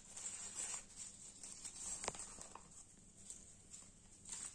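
Faint rustling and crinkling of a crumpled paper seed packet being handled and set down, with a small sharp tap about two seconds in.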